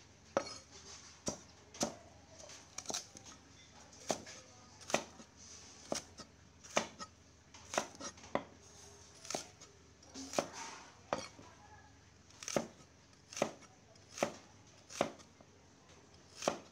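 Steel cleaver chopping vegetable into strips on a round wooden chopping block: sharp knocks of blade on wood, a little more than one a second, in an uneven rhythm.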